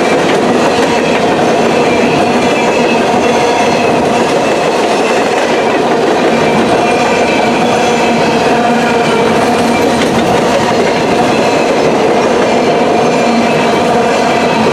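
Freight train of coal hopper cars rolling past at speed: steel wheels on the rails give a loud, steady rumble, with faint squealing tones over it.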